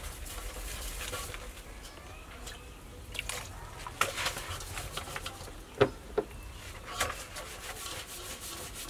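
Hands rubbing and scrubbing snakehead fish in a stainless steel bowl as they are washed, with a few sharp knocks against the bowl.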